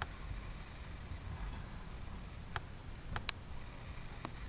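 Low, steady handling rumble with a few short, sharp clicks: one about two and a half seconds in, two close together a little after three seconds, and one near the end.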